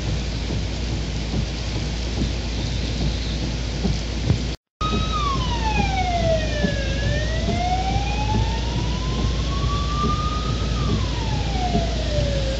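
Heavy rain falls steadily. After a brief dropout about a third of the way in, an emergency vehicle's siren starts a slow wail: its pitch falls over about two seconds, climbs back over about four, then falls again.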